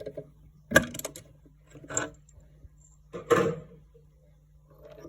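Home-built mini CNC mill at work: a steady low motor hum with three sharp clattering knocks, about a second apart, and faint ticks in between.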